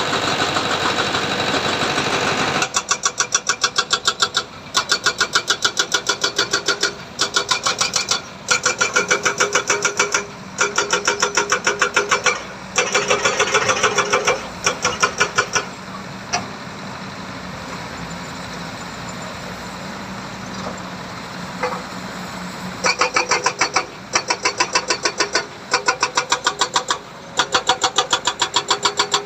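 Heavy diesel machinery engine running with a fast, even pulsing clatter of several beats a second. The clatter comes in runs broken by short gaps, and eases to a steadier, quieter hum around the middle.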